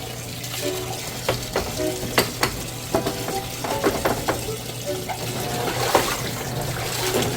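Light background music with short melodic notes, over a steady low hum and a run of sharp clicks, clatters and scraping noise.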